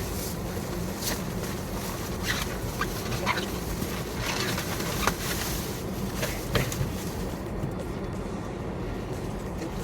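Steady low hum of a car's cabin with scattered short clicks and rustles, a couple of sharper ones about five and six and a half seconds in.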